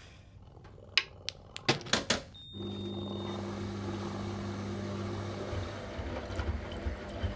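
Washing machine starting up: several quick clicks and a short high beep, then the motor and drum set in with a steady low hum, with a few low bumps near the end.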